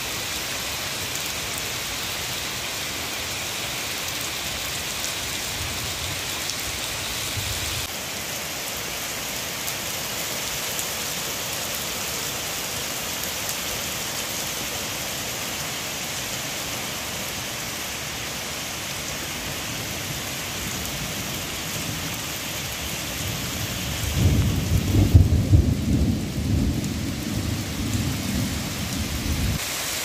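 Heavy rain falling steadily and splashing on wet pavement. About 24 seconds in, a low rumble of thunder swells and rumbles unevenly for about five seconds.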